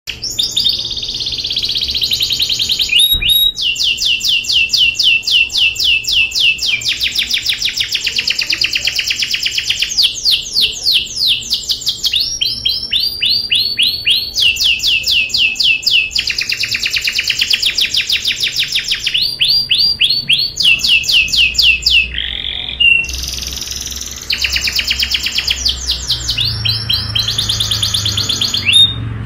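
Domestic canary singing a rolling song: long, very rapid trills, each run held for a second or two before switching to another trill pattern, with only brief breaks.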